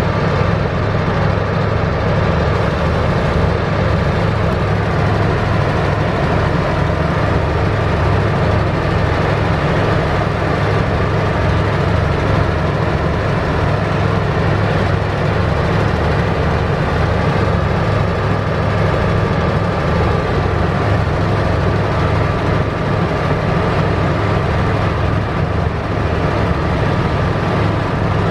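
Heavy diesel engine of a multi-axle girder transporter running steadily at a constant speed, a deep even drone with a fine rapid pulse.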